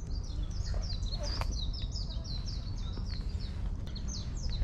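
A bird singing a fast, steady series of high, descending chirps, about three a second, over a low steady rumble.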